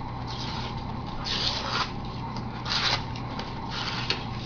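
Rustling and crinkling of a vinyl skin sheet and its paper backing being handled, in about four short bursts, over a faint steady low hum.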